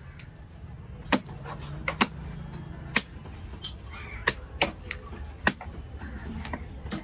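A large knife chopping through fish onto a wooden log chopping block: about seven sharp, separate strikes at irregular intervals, over a steady low rumble.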